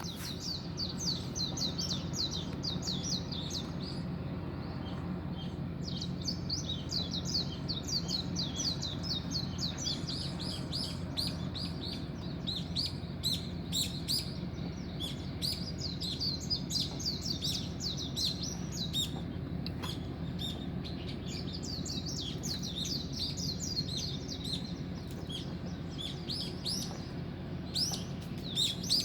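Dawn chorus: many small birds chirping in quick, overlapping high calls without a break, over a steady low hum.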